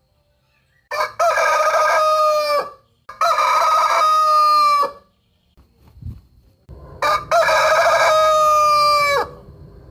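Rooster crowing three times, each crow about two seconds long and ending in a falling note.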